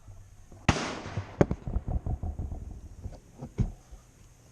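Semi-automatic .22 LR rifle shots: a sharp crack with a trailing echo under a second in, a second shot about three-quarters of a second later, and a fainter crack later on.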